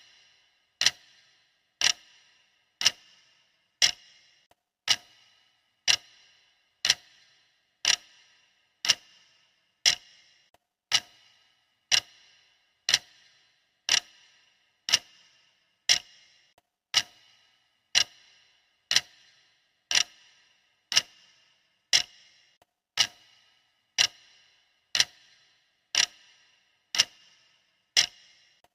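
Clock ticking steadily, about one sharp tick a second, each tick with a short bright ring.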